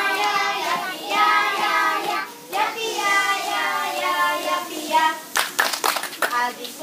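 A group of young children singing a song together in unison. About five seconds in, the singing breaks into a run of hand claps.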